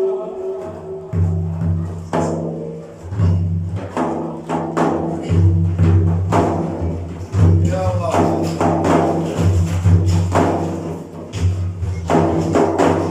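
Frame drums (daff) played in a steady rhythm of deep booming strokes and sharper slaps, the percussion of an Iraqi Prophet-praise (manqaba) chant.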